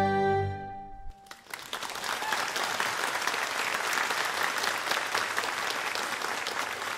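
The held final chord of a hymn dies away about a second in, then the congregation breaks into steady applause.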